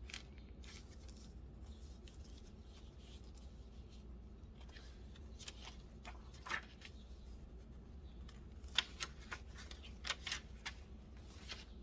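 Paper pages of a handmade junk journal rustling and flapping as they are handled and turned, with scattered soft clicks and taps, over a steady low hum.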